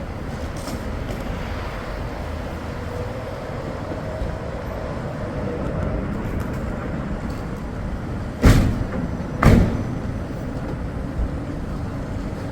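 Steady road-vehicle and traffic noise, with two loud sharp thumps about a second apart near the end.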